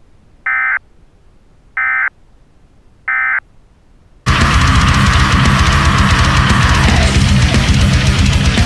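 Three short EAS end-of-message data bursts, the digital screech that closes an alert, then about four seconds in loud heavy rock music with electric guitar cuts in abruptly.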